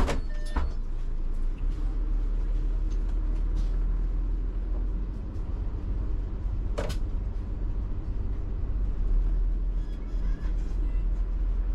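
Iveco Urbanway 12 city bus heard from inside, its engine running with a steady low rumble. Two short sharp sounds stand out, one right at the start and one about seven seconds in.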